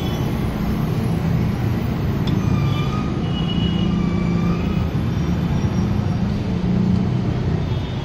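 Steady rumble of running vehicle engines and road traffic.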